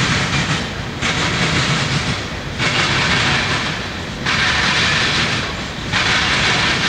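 Freight train cars rolling past: a steady rumble of steel wheels on rail, with a hissing rush that swells and fades about every three seconds.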